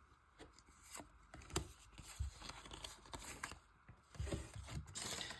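Faint handling of Pokémon trading cards and a foil booster pack: scattered soft taps and rustles, a little louder near the end.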